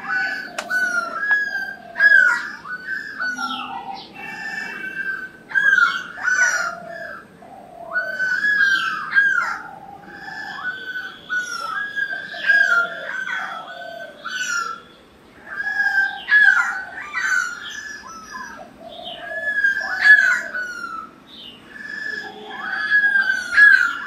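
Stork-billed kingfisher calling over and over, a loud series of repeated notes, with other birds chirping in the background.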